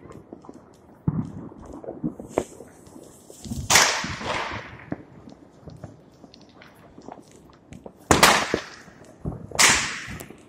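Fireworks going off: a series of sharp bangs, each ringing away for about a second, with smaller pops and crackles between. The loudest come about four, eight and nine and a half seconds in.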